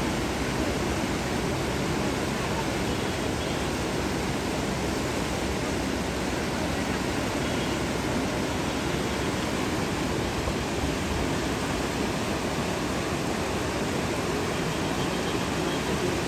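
Steady, even rush of a flooded river in full spate, with no breaks or changes.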